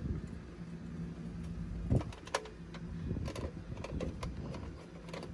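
Clicks and knocks of a VCR circuit board and its plastic chassis being handled and pried, the loudest a sharp knock about two seconds in, over a low steady hum that fades out shortly after.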